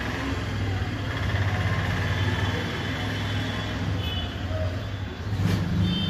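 LG top-load washing machine running empty with a newly replaced gearbox: a steady motor-and-gearbox hum as the pulsator turns, changing in tone about five seconds in.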